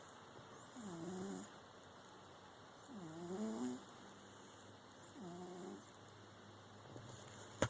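House cat snoring in its sleep: three pitched, wavering snores about two seconds apart. A sharp click right at the end.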